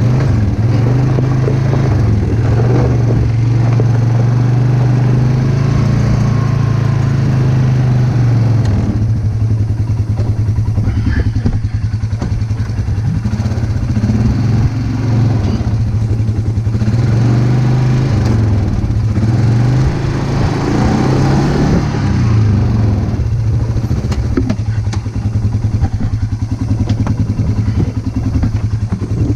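An engine running steadily throughout, its pitch dipping and rising several times as the machine works, with some light clatter.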